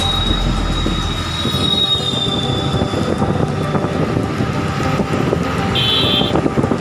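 Ride noise inside a moving vehicle: a steady rumble and rattle. A high thin squeal fades away over the first few seconds, and a brief high chirp sounds near the end.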